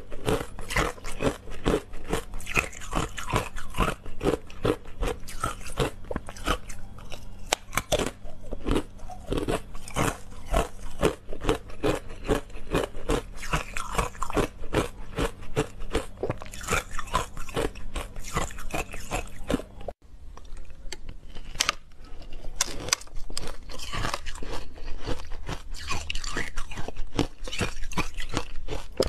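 Close-up crunching and chewing of frozen matcha ice: a rapid, dense run of sharp crunches as the ice is bitten and chewed, breaking off briefly about two-thirds of the way through before the crunching starts again.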